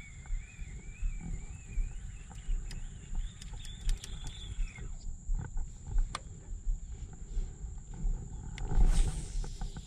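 Wind buffeting the microphone in gusts, with a steady thin high tone. A faint wavering whine climbs in pitch and cuts off about five seconds in. A stronger gust comes near the end.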